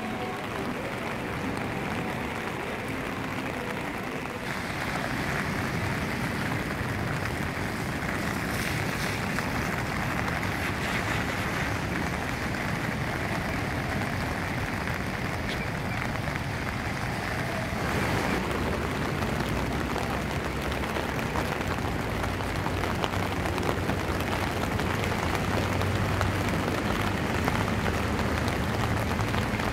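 Steady rain falling on wet pavement and water, a constant hiss with no distinct events. The noise changes character abruptly twice, about 4 and 18 seconds in.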